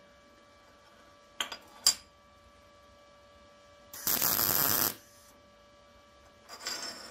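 MIG welder tacking thin-wall mild steel square tubing: a burst of arc crackle just under a second long about four seconds in, with a quieter, shorter burst near the end. Before it come two sharp clicks, and a steady hum runs underneath.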